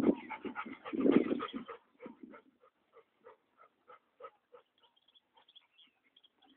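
Large dogs at play, a Saint Bernard and a Neapolitan Mastiff: a deep bark as the sound opens and another about a second in, then a run of short, evenly spaced sounds about three a second that fades away.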